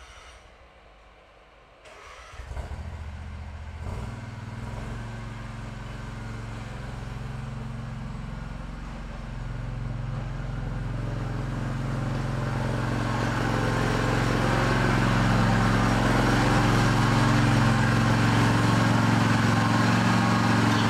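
Snapper riding lawn mower's engine starting up about two seconds in, then running steadily and growing louder as the mower comes closer, loudest near the end.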